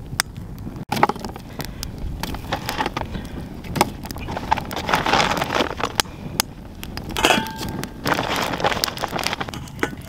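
Split-log wood fire crackling with many sharp pops, under wind rumbling on the microphone.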